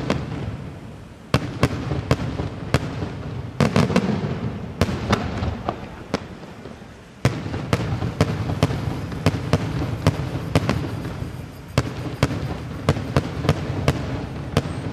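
Daytime aerial fireworks: a long irregular string of sharp reports from shells bursting overhead, over a continuous low rumble. There is a lull around the middle, then a loud burst sets off a denser run, with bangs coming several a second near the end.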